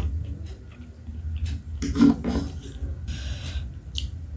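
Close-up eating sounds of a person eating spicy noodles: chewing and wet mouth noises with small clicks, then a slurp of noodles a little after three seconds.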